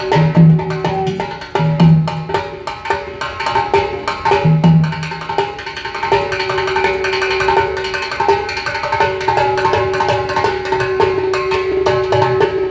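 Conch shell (shankh) blown in a long steady note that starts about six seconds in, over fast rhythmic percussion with many sharp strikes.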